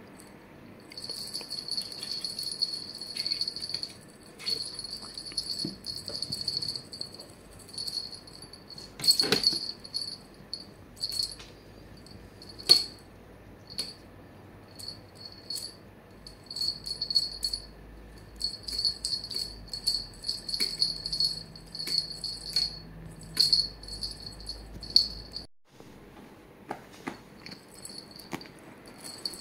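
Small bell on a cat wand toy jingling in quick bursts as it is shaken and batted, with a couple of sharp knocks along the way.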